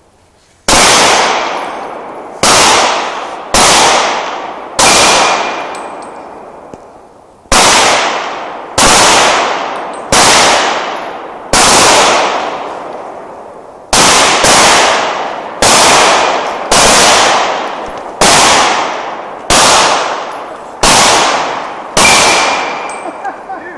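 A slow string of about sixteen Glock pistol shots, one every second or two with a short pause after the fourth and eighth, each crack trailing off in an echo. The pistols are a 9mm Glock 17 and a .40 Glock 22.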